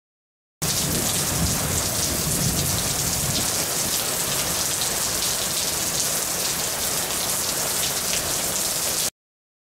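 Heavy thunderstorm rain pouring down in a steady, even hiss, starting suddenly about half a second in and cutting off abruptly near the end.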